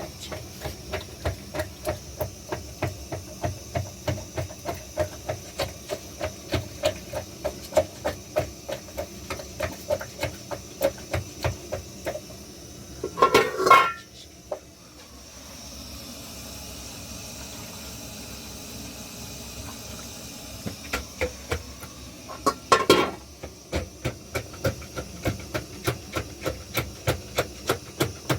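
Rhythmic knocking, about two strikes a second, like something being hammered or pounded. A quieter stretch of steady hiss falls in the middle, and two louder clattering bursts break in, about thirteen and twenty-three seconds in.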